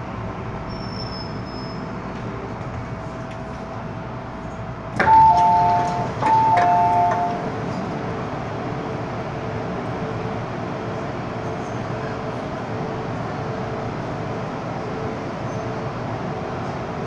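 Two-note electronic chime inside an MTR M-Train car, a high note followed by a lower one, sounding twice in quick succession about five seconds in over the steady hum of the train.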